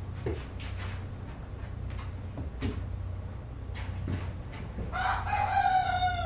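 Farmyard ambience: scattered soft clucks and clicks over a low steady hum. About five seconds in comes one long drawn-out animal call, held on one pitch and sliding down at its end; it is the loudest sound.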